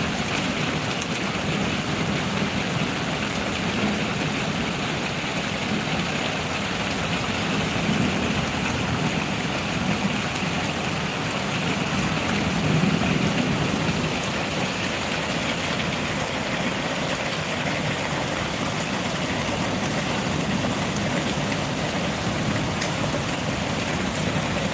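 Heavy rain pouring steadily, a dense even hiss, with muddy floodwater running across the ground.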